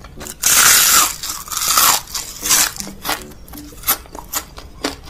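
Close-miked ASMR eating of fried grasshoppers: a long, loud crunch about half a second in, lasting about a second and a half, followed by a run of sharp, separate crunches as they are bitten and chewed.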